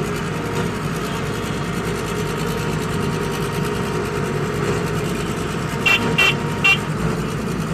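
Excavator's diesel engine running steadily under load as its bucket pushes a vibratory roller compactor uphill, heard from the cab. Three short high-pitched blips come about six seconds in.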